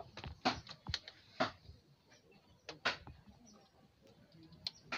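A string of sharp, light clicks and ticks at uneven intervals, several close together in the first second and a half, a pair near three seconds and two more near the end.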